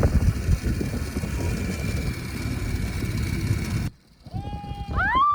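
Wind rushing and rumbling over the microphone during a zipline ride, with a faint steady whine on top. It cuts off abruptly about four seconds in, and a held high tone with a slight waver begins, sliding upward.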